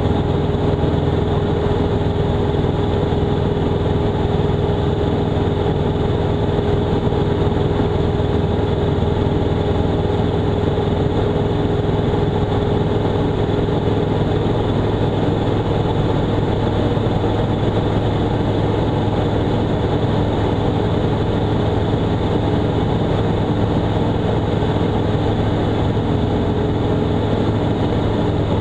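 Robin DR400-180's 180 hp Lycoming four-cylinder engine and two-blade propeller droning steadily in flight, an even, unbroken hum with no change in pitch.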